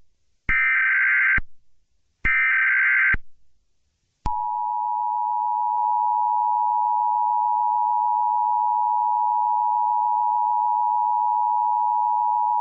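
Emergency Alert System tones: two roughly one-second bursts of SAME digital header data, then the EAS two-tone attention signal (853 and 960 Hz together) held steady for about eight seconds, announcing the start of a flash flood warning broadcast.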